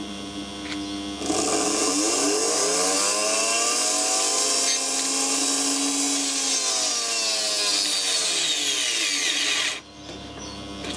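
Brushed motor, its windings and commutator damaged, running hard with a hissing crackle of commutator sparking. About a second in its whine rises in pitch as it speeds up, holds, then falls as it slows, and it cuts off suddenly near the end.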